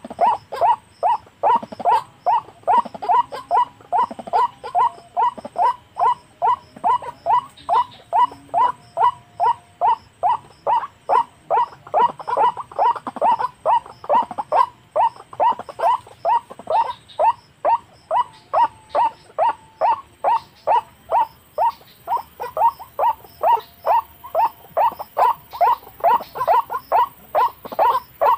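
White-breasted waterhen call, one note repeated steadily about two to three times a second without a break: the lure call used to draw waterhens to a snare.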